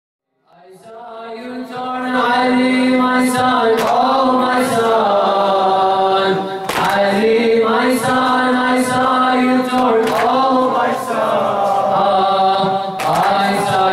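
Voices chanting in sustained held notes, the opening of a Shia noha lament, fading in from silence over the first two seconds; a few sharp hits sound now and then.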